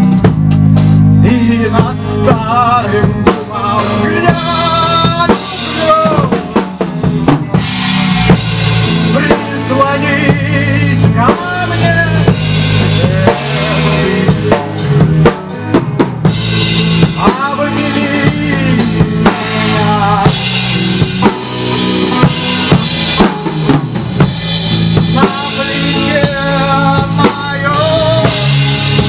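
Rock band playing: drum kit, bass guitar and electric guitars, with a lead melody that bends and wavers in pitch over a steady beat.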